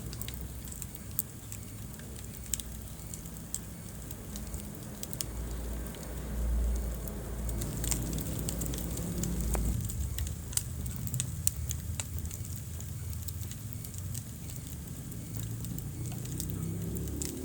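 Wood fire burning in a fireplace, crackling with scattered sharp pops over a low, steady rumble of the flames.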